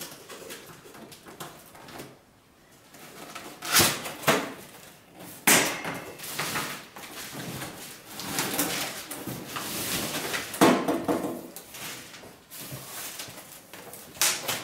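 Cardboard packaging being handled: a large box's lid and inner cardboard flaps lifted and folded back, with scraping and rustling and several sharp cardboard knocks.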